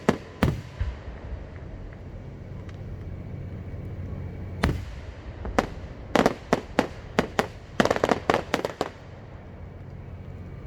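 Fireworks going off: a bang near the start and another a few seconds later, then about a dozen sharp reports in quick succession from about five to nine seconds in.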